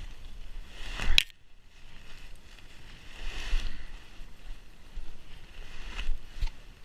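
Gusty wind buffeting the microphone, a low rumble with swelling gusts, and a sharp knock about a second in.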